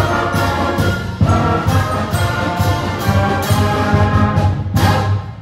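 Symphonic concert band playing brass and woodwinds over a steady drum beat of about two strokes a second. It ends on a final accented chord that cuts off near the end.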